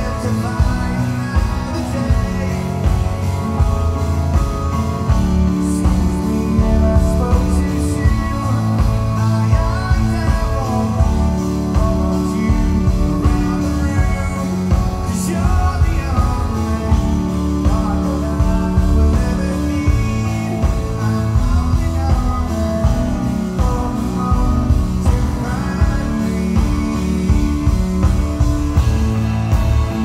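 Live rock band playing through a concert PA, heard from the audience: strummed acoustic guitar, electric guitars, bass and drums keeping a steady beat, with a male lead vocal singing over them.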